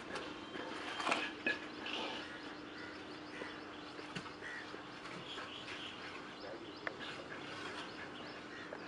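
Faint birds chirping over a steady low hum, with a few light knocks, the clearest about a second in and near seven seconds.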